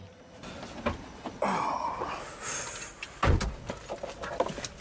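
A car's driver door opening and a person climbing into the seat, then the door shut with a thud about three seconds in.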